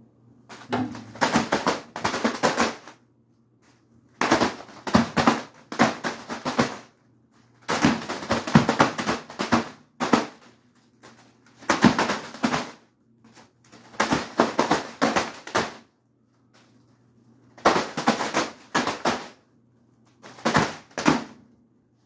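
Spinning ceiling fan blades repeatedly striking a birthday balloon and its ribbon: bursts of rapid clattering slaps, each lasting one to two and a half seconds, about seven times with short pauses, over the fan motor's faint steady hum.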